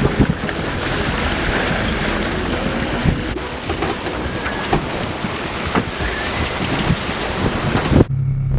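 Wind buffeting the microphone and the sea rushing past aboard a sailing catamaran underway, a dense steady rush with gusty low rumbling and a few faint knocks. It cuts off abruptly near the end, replaced by a steady low hum.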